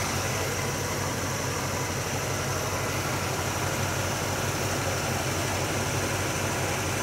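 Carbureted small-block Chevy V8 idling steadily, its idle mixture being leaned out.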